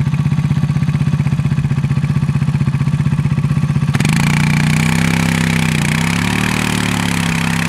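ATV engine running with a steady low chug, then about four seconds in it revs up suddenly and holds at higher revs, its pitch wavering slightly.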